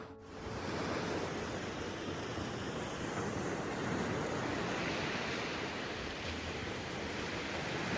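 Sea waves washing in, a steady rush of surf.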